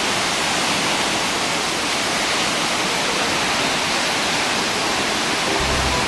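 Steady rushing noise of a large waterfall, an even hiss-like roar without breaks.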